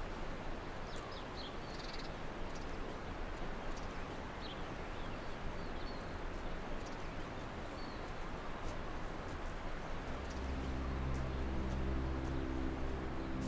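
Outdoor ambience of birds calling in short chirps over a steady background hiss. Background music with long held low notes comes in about ten seconds in.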